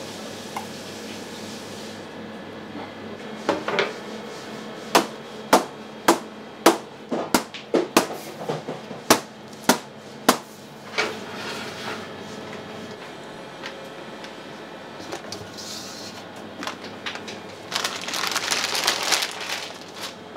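Kitchen work: a run of about a dozen sharp knocks and clacks at an uneven pace, then a burst of hissing noise near the end.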